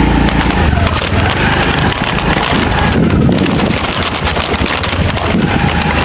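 Steady rushing noise of a waterfall not yet in sight, mixed with wind rumble on the microphone.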